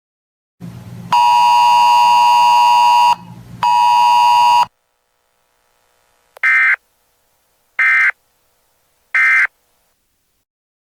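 A loud electronic buzzer tone sounds twice, the first about two seconds long and the second about one second. Then come three short, identical warbling data bursts about 1.4 seconds apart: the SAME end-of-message code closing a weather radio alert.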